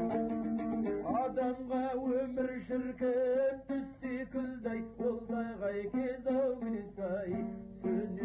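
Kazakh song: a man singing with a wavering vibrato over plucked dombra accompaniment. The voice comes in about a second in and drops out near the end, leaving the dombra.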